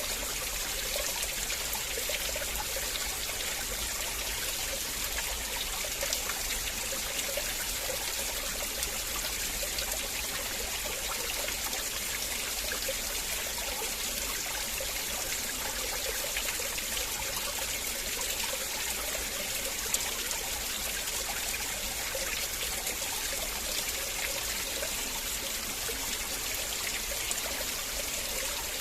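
River water flowing steadily over stones, with a constant rush and small trickling, babbling sounds in it.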